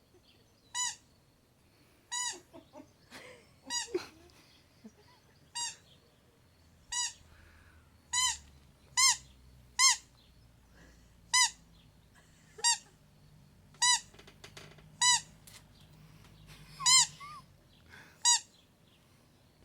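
Dog whining in a string of short, high squeaks, begging for food. Each squeak rises and falls in pitch, repeating about every one to one and a half seconds.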